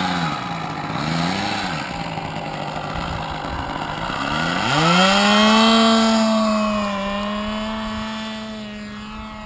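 RC model airplane engine wavering at low throttle, then revving up about four and a half seconds in to a steady full-throttle note for the takeoff run. Its pitch dips slightly and the sound fades as the plane moves away.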